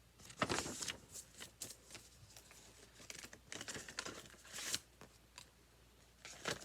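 Packaging being handled and opened by hand: irregular bursts of crinkling and tearing, loudest about half a second in and again around four seconds in, with small clicks between.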